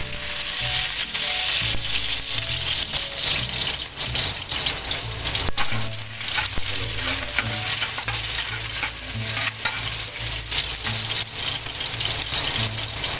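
Chopped onions sizzling in hot oil in a metal wok, with a metal spatula scraping and clicking against the pan as they are stirred.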